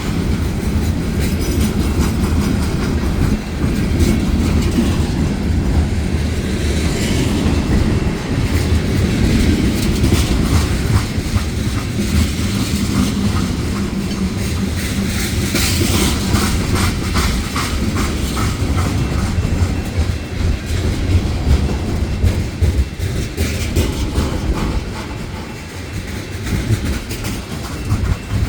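Union Pacific manifest freight train rolling past, a steady low drone under the clatter of wheels over the rails, with a fast run of clicks in the middle. It gets somewhat quieter near the end.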